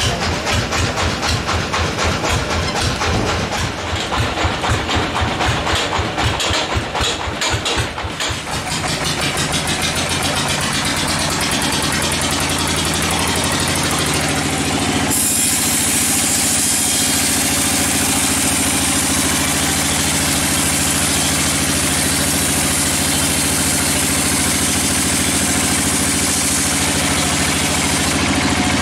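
Band sawmill running: a fast pulsing machine sound for the first several seconds, then the pitch rises and settles into a steady drone. About fifteen seconds in, the band blade enters the log and a loud high hiss of sawing joins the drone and holds.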